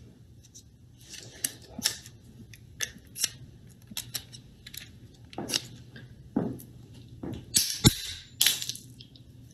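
A snap-off utility knife handled by hand: a string of plastic clicks and scrapes as the blade is slid out and worked into a clip-on blade snapper. About eight seconds in comes a sharp snap, the loudest sound, as the blade is broken, followed by a further crack.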